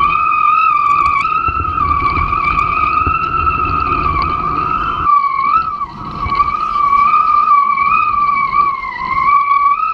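Steady high-pitched whistle from a kitefoil rig at speed, wavering slightly in pitch and dipping briefly about six seconds in. Wind and water rush underneath, heavier in the first half.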